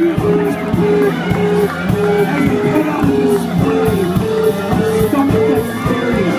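A live rock band playing a repeating guitar riff over a steady drum beat.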